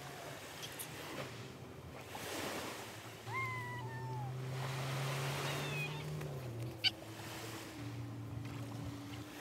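Waves washing on the shore in two slow swells of hiss, under a steady low motor hum that drops in pitch about two-thirds of the way through. Two short falling calls come in the middle, and a single sharp click just before the end.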